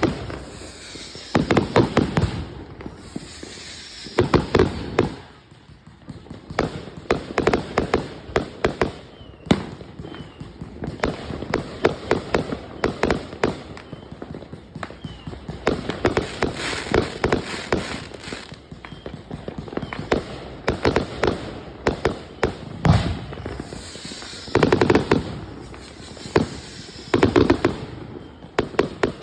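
A 180-shot consumer firework cake firing in rapid clusters of sharp cracks and bangs, with a short lull about five seconds in.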